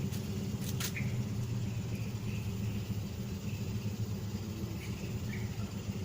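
Steady low background rumble, with a short click about a second in.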